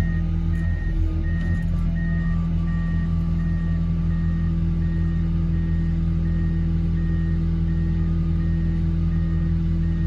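Reversing alarm on a heavy machine beeping at an even rate of about two beeps a second. Under it a large engine runs with a steady drone.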